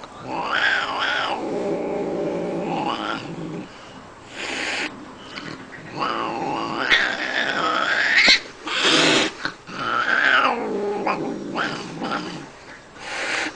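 An angry cat yowling and growling in long, wavering drawn-out calls, broken by three short hisses. It is a threat display from a furious cat.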